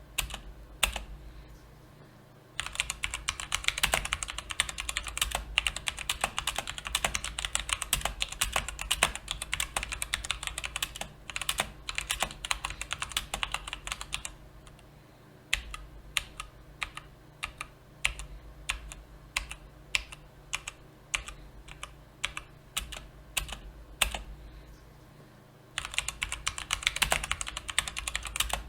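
Typing on a mechanical keyboard with brown (tactile) switches. A few scattered keystrokes give way about two and a half seconds in to fast, continuous typing. This slows to separate, spaced keypresses around the middle and turns fast again near the end.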